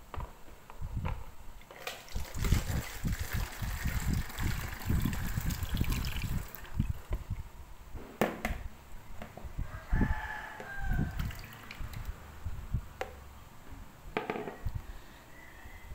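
Liquid sloshing and splashing in plastic basins as they are handled and tipped toward a plastic funnel, with low knocks of plastic on plastic. A rooster crows in the background about ten seconds in.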